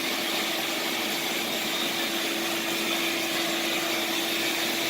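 Ridgid 5-horsepower shop vac running steadily, a constant whirring hum with a single held tone, blowing air into the tailpipe to pressurise the exhaust so that the leaks show.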